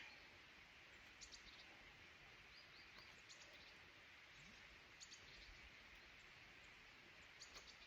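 Quiet forest ambience with faint bird chirps: short high notes in small clusters scattered through, over a soft steady hiss.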